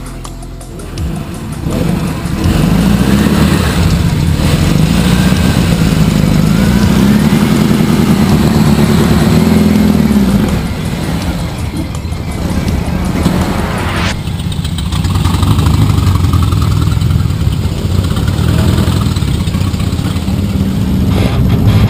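Motor trike engines running and revving at low speed, louder for the first ten seconds or so. A brief rising whine comes about fourteen seconds in, and a lower steady engine rumble follows.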